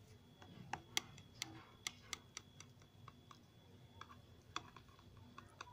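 Light, irregular clicks as a knife cuts through syrup-soaked basbousa and its blade taps the bottom of the glass baking dish: about a dozen faint ticks, most of them in the first three seconds.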